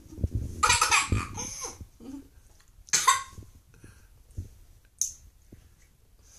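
A young girl laughing and sputtering in a few short, breathy bursts, her reaction to the foul taste of a skunk-spray jelly bean.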